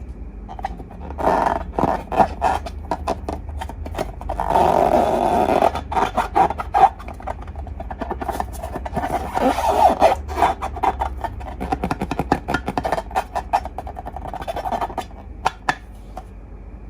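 Slime being squeezed and worked by hand: sticky crackling, squelching and rapid clicking, with a longer continuous squish about four seconds in, over a steady low hum.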